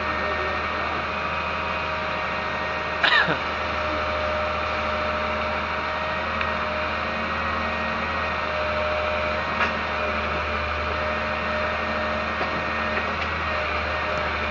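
A motor running steadily at a constant, even drone. About three seconds in there is a brief high squeal that falls in pitch.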